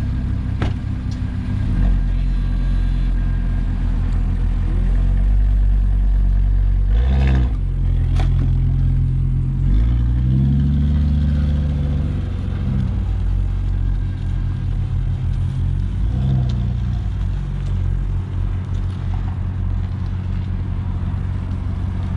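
Audi RS3's turbocharged 2.5-litre five-cylinder engine, breathing through a new APR exhaust, driving off and pulling away; its pitch rises and falls as it revs about halfway through, with a couple of sharp knocks shortly before. The note is still pretty quiet for what it is.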